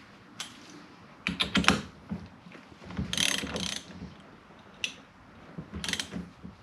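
Hand ratchet with a socket clicking in three short spells, with a couple of single clicks between: the steering wheel's nut being run down onto the steering shaft.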